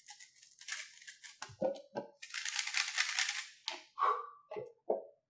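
Handling noises: a string of short clicks and knocks, with a rustle about two seconds in lasting about a second, from a Rubik's cube being handled and set down after a solve.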